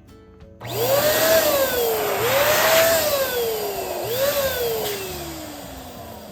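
Electric balloon pump blowing air into a balloon: a loud rush of air starts under a second in, with a motor whine that rises and then sinks three times. The last sink is long, and the sound fades near the end.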